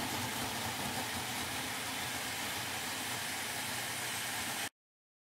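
Electric food processor running steadily, its blade chopping chunks of peeled ginger. The sound cuts off suddenly near the end.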